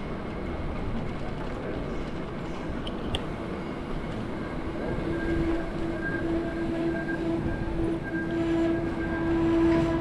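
Steady rumbling vehicle noise on a city street, with a steady humming whine that grows from about halfway through.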